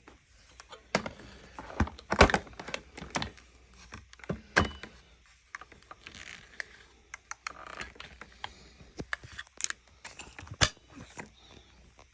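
Irregular plastic clicks and knocks from handling a small Dirt Devil Power Express vacuum, with its motor switched off.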